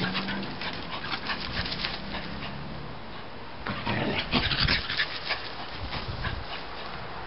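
A small white dog panting and making low excited vocal sounds as it scrabbles through a shrub bed, with rustling and scratching among the leaves. The noise is loudest about four to five seconds in.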